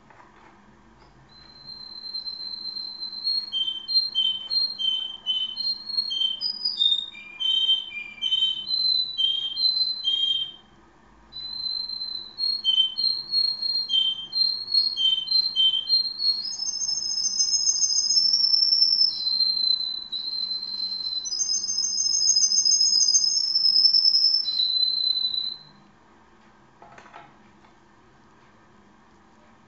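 Caged canary singing a long song of clear whistled notes and fast trills, breaking off briefly about eleven seconds in, with long rolling trills in the second half; it stops a few seconds before the end.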